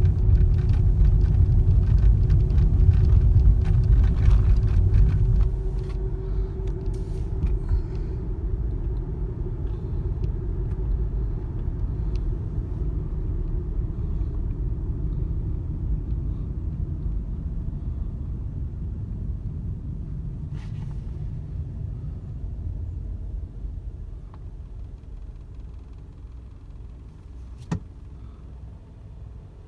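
Car interior road and engine noise while driving: a low, steady rumble, loudest for the first five seconds or so, then easing and fading as the car slows to a stop. A single sharp click near the end.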